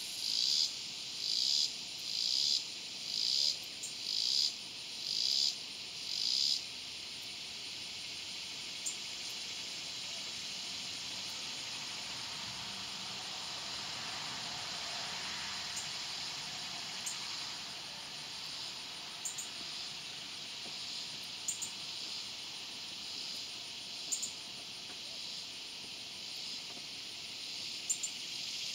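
Swamp cicada (Neotibicen tibicen) calling: a high buzzing song that throbs in loud pulses about once a second for the first six seconds or so, then runs on as a steady, even buzz.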